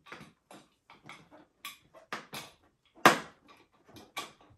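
A quick, irregular run of short knocks, clicks and scrapes from hand-fitting a flat-pack chair's leg and screws, with one louder knock about three seconds in.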